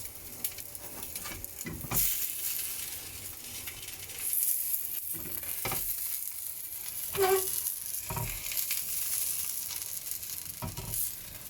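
Chicken murtabak sizzling in oil and ghee in a frying pan as its edges are toasted crisp, with a few knocks of pan or utensil along the way.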